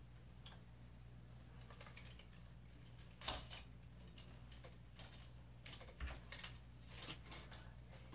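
Plastic clothes hangers clicking and scraping along a closet rod as clothes are pushed aside, a scatter of quick irregular clicks starting about three seconds in.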